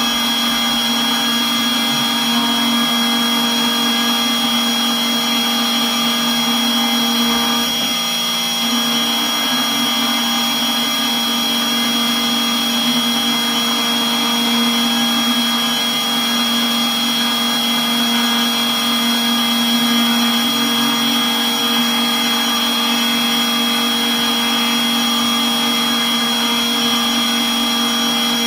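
FABtotum Personal Fabricator's milling spindle running steadily with a high whine and a lower hum, its fine bit cutting into a copper-clad PCB.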